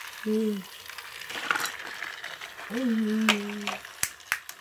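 Sharp plastic clicks and clacks from a toy train set being handled and run, a few of them near the end. Two short hummed vocal sounds from a person come in, the second longer and held.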